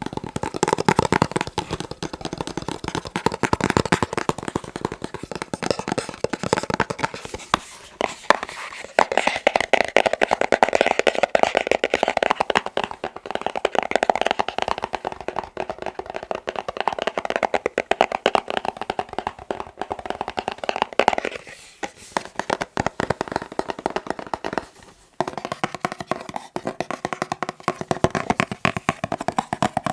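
Fast, dense tapping with the fingers on boxes, many taps a second. The tone of the tapping changes a few times, about seven seconds in, after a short pause near 21 seconds, and again near 25 seconds, as the tapping moves to a different box.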